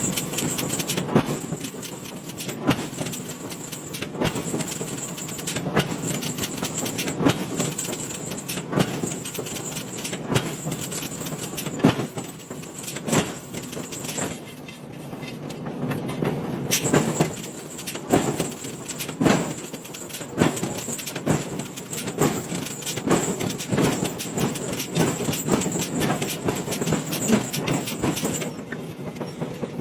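Forging-plant machinery for alloy wheels: a steady industrial din with many irregular clanks and knocks, and a thin high whine that cuts out for a few seconds around the middle and again near the end.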